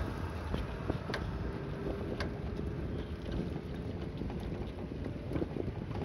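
Wind buffeting the microphone during a bicycle ride, a steady low rumble with a few sharp clicks about one and two seconds in.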